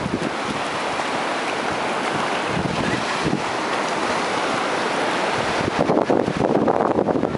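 Surf washing up a sandy beach, with wind buffeting the microphone and growing louder and gustier about six seconds in.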